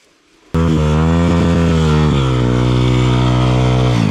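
Dirt bike engine cutting in suddenly about half a second in and running hard at steady high revs, the pitch easing down a little about halfway through.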